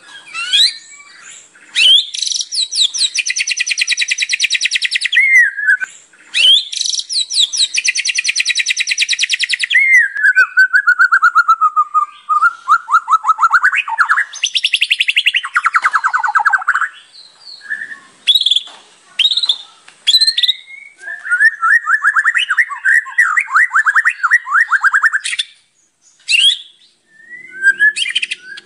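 White-rumped shama singing in full voice, a varied song packed with fill phrases: two long, fast, high trills in the first ten seconds, then falling whistles and short, varied phrases, and a third long trill, lower in pitch, about three quarters of the way through.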